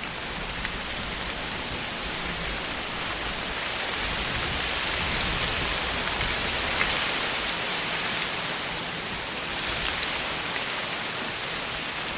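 Wind blowing through tree foliage: a steady rushing rustle of leaves that swells in a gust in the middle and eases again.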